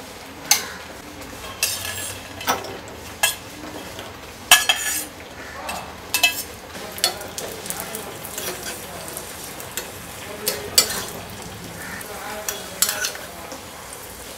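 Cashew nuts and raisins frying in hot ghee in a small metal pan, with a steady sizzle. A spoon scrapes and clinks against the pan again and again as they are stirred.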